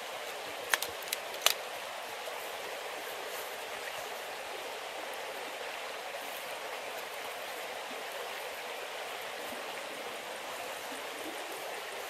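Steady rush of a nearby stream. A few sharp clicks sound in the first second and a half.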